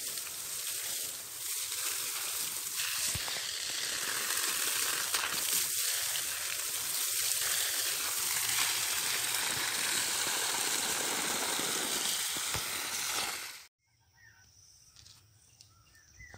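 A steady hiss that cuts off abruptly about three-quarters of the way through, after which it is much quieter.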